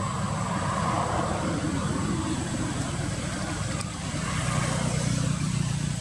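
Motor vehicle engine running steadily, dipping briefly about four seconds in and swelling again.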